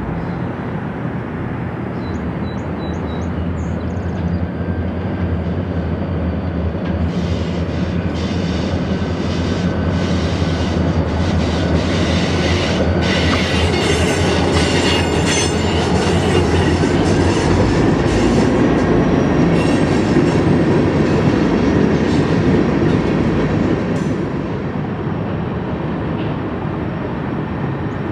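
Two EMD diesel locomotives hauling covered hoppers past, their engines running steadily under load. The hopper cars follow, wheels clicking and clattering on the rails, loudest in the middle.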